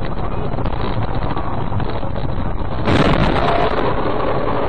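Dashcam audio of a vehicle driving in city traffic: steady engine and road rumble with wind buffeting the microphone. About three seconds in it switches abruptly to louder, brighter road noise.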